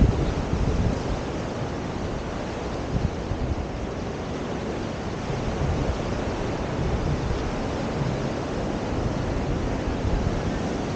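Steady rushing outdoor noise: wind on the microphone mixed with the wash of sea surf.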